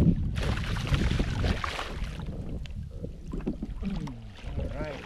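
A hooked fish thrashing and splashing at the water's surface beside a kayak as it is netted. The splashing is strongest from about half a second in for a second and a half, over a low wind rumble on the microphone.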